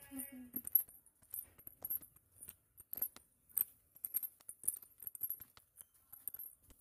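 Scattered light clicks and taps, a few a second and irregular, from people walking and handling things.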